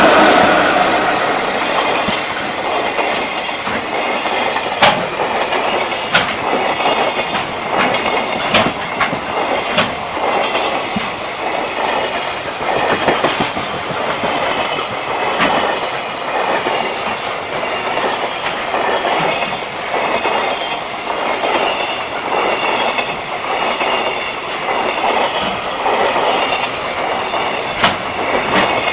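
Long freight train's wagons rolling past close by, the wheels clacking steadily over rail joints, with occasional sharp clanks.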